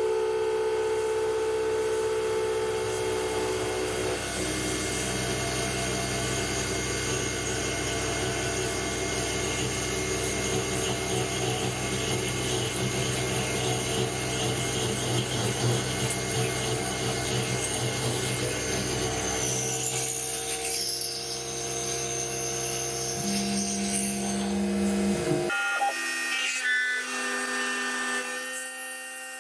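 Sieg X2 mini mill, converted to CNC, running a drilling program with an 8 mm drill: the spindle motor whines steadily under a rough cutting noise. The sound changes abruptly a few seconds before the end.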